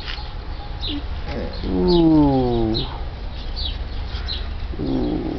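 Dogs and puppies play-fighting, with short high squeaks repeating throughout and one drawn-out moan falling in pitch about two seconds in, then a fainter one near the end.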